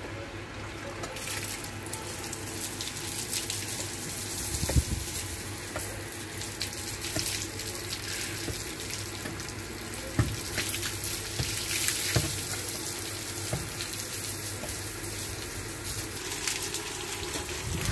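Water from a garden hose splashing over a water buffalo's back and running off onto a brick floor, with a few short thumps.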